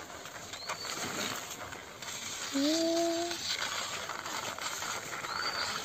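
Plastic toy car wheels rolling and rattling along a concrete ledge. About halfway through comes a short tone of about a second that rises briefly and then holds steady.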